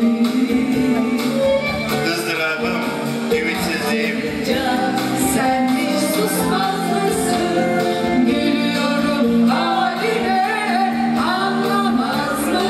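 A live pop song: women singing into microphones, holding long notes over instrumental backing.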